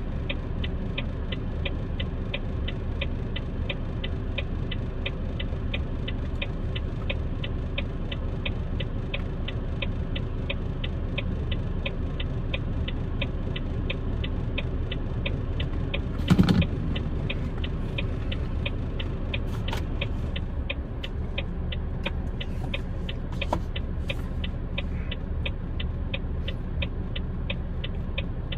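A stationary vehicle's engine idling with a steady low rumble, under an even ticking about three times a second. A single sharp thump about halfway through is the loudest sound.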